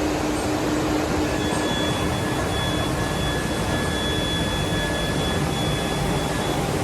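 Liebherr LC 300 CNC gear hobbing machine running: a steady mechanical hum, with a faint high steady whine that comes in about a second in.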